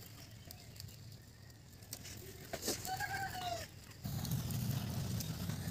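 Wood fire in a clay stove crackling with scattered small pops, while vegetables roast over it. A short animal call sounds about three seconds in, and a low background rumble grows louder about a second later.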